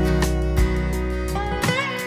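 Background music: a guitar-led instrumental tune over a steady bass.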